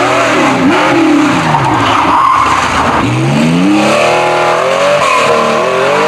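Rally car at speed on a special stage, its engine revving hard with tyres squealing and skidding. The engine pitch falls, then climbs steeply about three seconds in as it accelerates.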